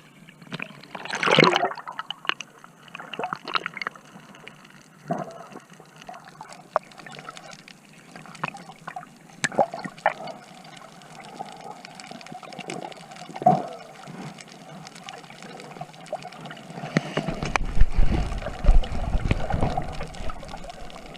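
Water sloshing and gurgling with scattered splashes and clicks; a loud low rumble joins in about three-quarters of the way through.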